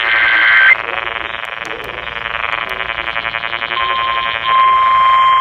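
Emergency Alert System tones. A burst of warbling digital data tones (the SAME header) ends about three-quarters of a second in. It is followed by a steady electronic alert tone that gets louder about four and a half seconds in, the attention signal that opens the next warning.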